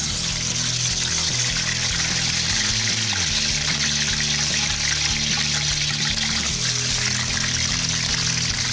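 Fish pieces sizzling in hot vegetable oil in a wok, the hiss starting sharply as the fish goes in and then holding steady. Soft background music plays underneath.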